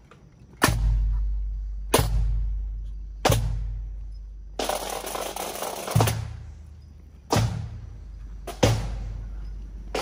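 A pipe band's marching drums beat a slow cadence: a hard, deep stroke about every 1.3 seconds. About halfway through, a snare roll runs into the next stroke.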